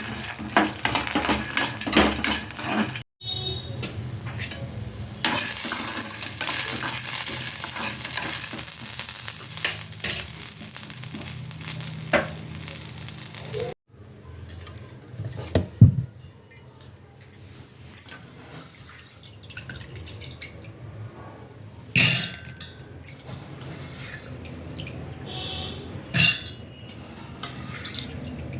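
Kitchen cooking sounds in three short cuts. First, clinks and taps of utensils. Then about ten seconds of steady sizzling from food frying in a hot pan. Last, scattered clinks and knocks of pots and utensils.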